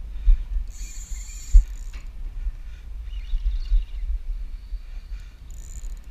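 Fishing reel's drag buzzing as a hooked fish pulls line off, in two spells: about a second in, and again near the end. Low rumbling thumps run underneath throughout.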